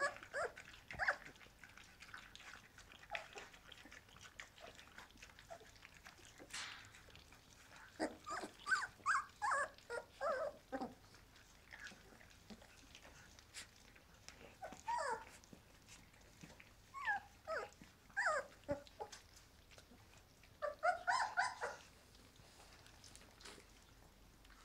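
Puppy whining in several short clusters through the second half, over the wet clicking of dogs lapping and licking soft food from a stainless steel puppy feeding bowl.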